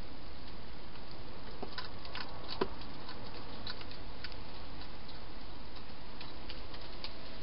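Hedgehog feeding from bowls inside a plastic feeding box: scattered small clicks of chewing and of the bowl, with one sharper click about two and a half seconds in, over a steady hiss.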